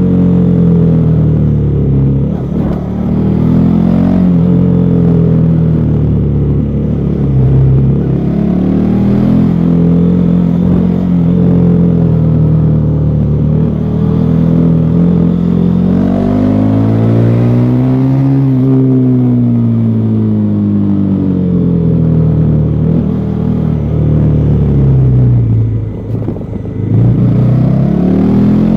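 Bajaj Pulsar NS400Z's single-cylinder engine through its stock exhaust, under way: the revs rise and fall repeatedly as the rider works the throttle and gears. One long climb in pitch peaks and falls away about two-thirds of the way in, and a short lift off the throttle dips the sound near the end before it picks up again.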